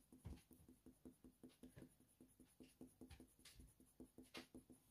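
Faint scratching of a Faber-Castell Polychromos coloured pencil on hot-press watercolour paper, in quick, short, repeated strokes.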